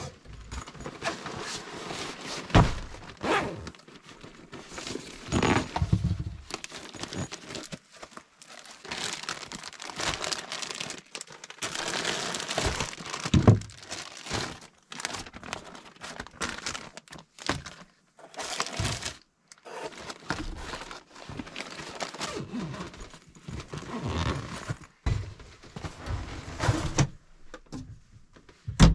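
Things being handled and set down in a small room: irregular knocks and thunks, with plastic packaging crinkling and tearing.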